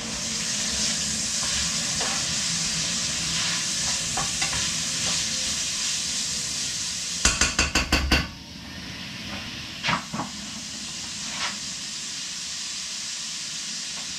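Food sizzling steadily as it lightly fries in a pan on the stove, with stirring. About halfway through comes a rapid run of sharp knocks lasting about a second, after which the sizzle is quieter, and a few single clicks follow.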